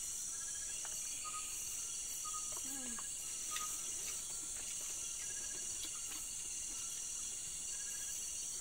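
Steady night chorus of crickets and other insects, a continuous high-pitched buzz, with a few faint clicks and knocks.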